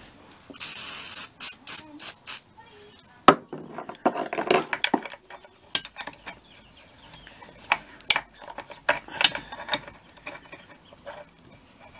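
A short hiss of penetrating oil sprayed from an aerosol can through a straw onto a stuck nut, then a string of sharp metallic clinks and knocks as a wrench is worked on the nut on an old Volkswagen transmission case.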